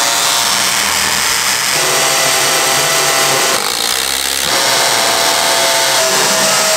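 A power tool running steadily with a harsh, hissing noise and a faint steady whine, its sound shifting a few times.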